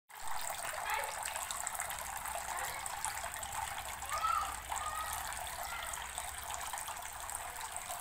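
Water from a homemade tabletop fountain pouring steadily in several thin streams from a plastic-bottle spout and splashing into a plastic box of stones, then trickling over into a tray below. A few faint short higher-pitched sounds come about halfway through.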